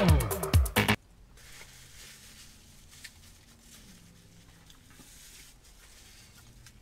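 A loud snippet of a song, a man singing over music, cuts off abruptly about a second in. After it come faint chewing sounds from a mouthful of pulled pork sandwich on a soft bun.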